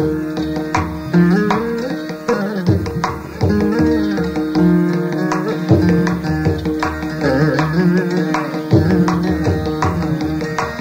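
Carnatic veena music: plucked notes that slide and bend in pitch over a steady drone, with low percussive strokes.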